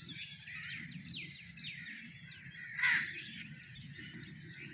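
Birds chirping, many short falling chirps, with one louder harsh call about three seconds in, over a low rumble.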